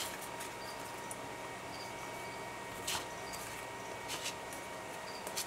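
Sheets of ink-coloured paper being handled and moved on a cutting mat: a few soft rustles and sharp taps, one about three seconds in and one near the end, over a faint steady hiss.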